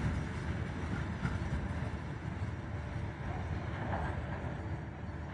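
Freight train wagons rolling away down the line, a steady rumble slowly fading as the tail of the train recedes.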